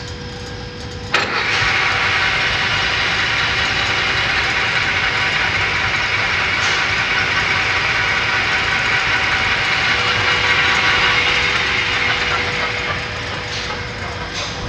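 A geared-head metal lathe's spindle starts up suddenly about a second in and runs steadily at speed, a mechanical drone with a gear whine of several steady tones. It gets quieter near the end.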